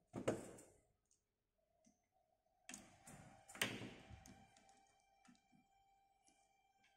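Quiet clicks and taps of plastic LEGO Mindstorms NXT robot parts and a cable plug being handled. The loudest clatter comes about three and a half seconds in, over a faint steady tone.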